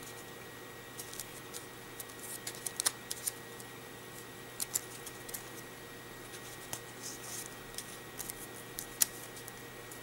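Folded paper strip modules of an origami bracelet being creased and tucked by hand: soft, irregular paper crinkles and a few sharper ticks, the loudest near the end, over a faint steady hum.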